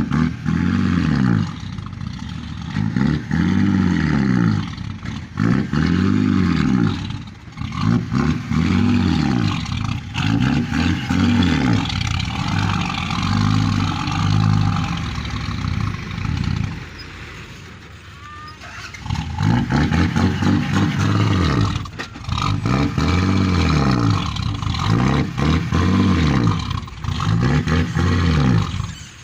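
Hydraulic excavator's diesel engine labouring under hydraulic load as it digs and loads, its pitch rising and falling over and over, about once every two seconds, with a quieter lull of a couple of seconds past the middle.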